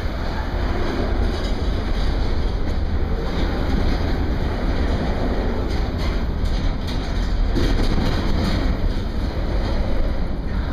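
CSX double-stack intermodal freight train's well cars rolling past: a steady rumble of steel wheels on rail, with a few faint clicks near the middle.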